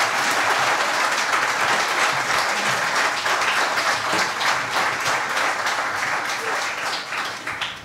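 An audience applauding after a live song, with the clapping fading away near the end.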